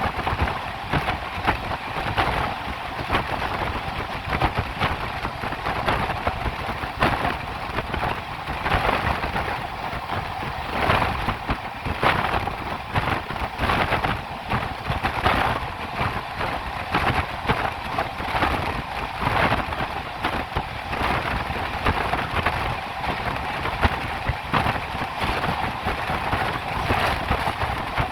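Poorva Express passenger train running at speed: a steady rumble of wheels on rail, with many quick clicks and knocks as the wheels pass over rail joints.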